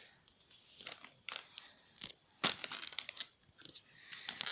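Plastic packaging of a new fidget spinner crinkling and crackling as it is handled and opened, in irregular short crackles and clicks, the loudest about halfway through.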